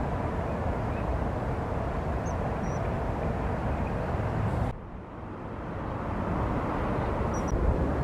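Steady low outdoor rumble of distant road traffic that drops off abruptly about halfway through and then swells back. A few faint, short, high chirps of a small bird come about two seconds in and again near the end.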